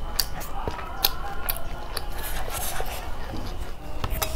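Close-miked hand-eating sounds: wet mouth clicks and chewing, and fingers squishing and mixing rice with curry on a steel plate, heard as scattered sharp clicks and crackles.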